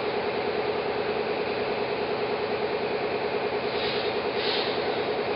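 Industrial orbital and rotary-brush sanding machine running: a steady machine hum with a constant tone and a fast, even pulsing, with a brief hiss about four seconds in.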